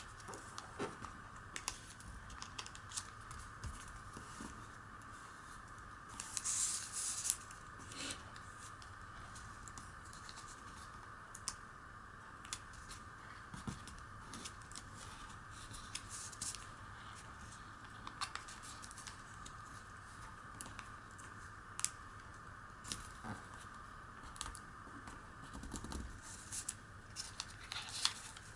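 Origami paper rustling and crackling as it is folded and creased by hand: many short, soft crackles scattered throughout, with a louder rustle about seven seconds in.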